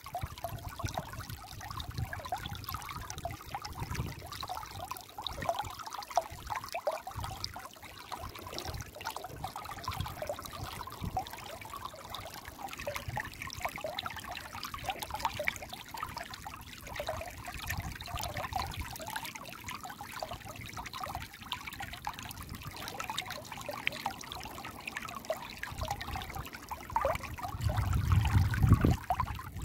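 Shallow stream trickling and burbling over rounded stones, a steady dense patter of small splashes. There is a louder low rumble for about two seconds near the end.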